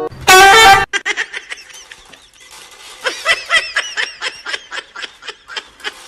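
A loud, harsh sound lasting about half a second near the start, then a person laughing in quick, high-pitched bursts.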